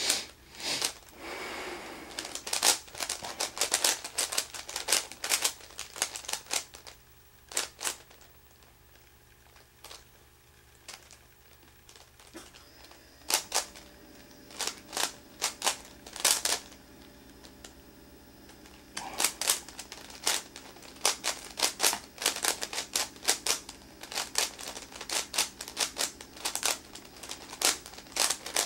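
Meffert's 4x4 puzzle cube being turned by hand: quick runs of sharp plastic clicks as its layers snap round, with a lull of several seconds in the middle before the rapid turning picks up again.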